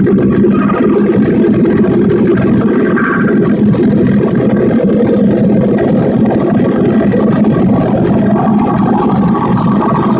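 Steady, dense electronic noise drone from a noise-electronics rig of drone synths and effects, with a strong low hum running under it.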